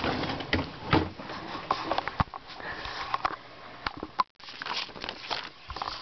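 A paper manila envelope being handled and its taped end pulled open: irregular crinkling and rustling of paper with scattered knocks from handling.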